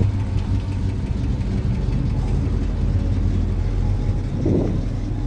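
Car engine running steadily with a low rumble.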